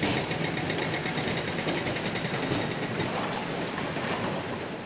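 Hydraulic breaker (hammer) hammering concrete and masonry rubble, a rapid, steady run of blows.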